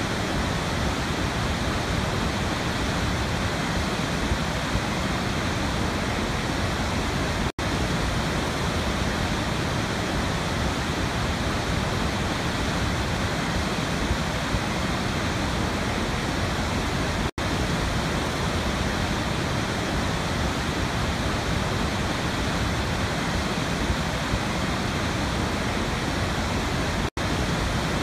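A steady, even rushing noise that does not change, cut by a brief dropout about every ten seconds where the looped recording restarts.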